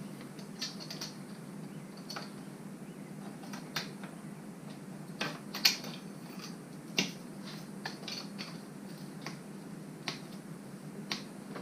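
Irregular sharp metal clicks and clinks of hand tools and bolts as the water pump is worked off a Jeep Cherokee XJ's engine, with a steady low hum beneath. Two louder clanks come a little past the middle.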